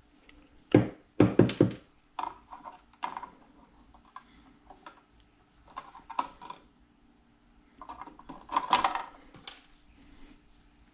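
Handling noises from hand tools and electrical wiring: a few sharp clicks about a second in, then scattered clicks, taps and rustling.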